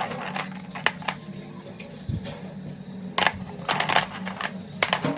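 Kitchen handling noises: a run of sharp clicks and knocks, with denser rattling clusters about three seconds in and again near the end, over a steady low hum.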